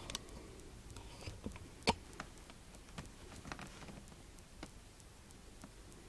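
Scattered light clicks and taps of a boxed collectible figure and its packaging being handled, with one sharper click about two seconds in.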